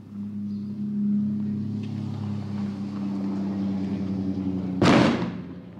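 A steady engine-like hum, then about five seconds in a single loud bang from a cohete (firework rocket) exploding, dying away within half a second.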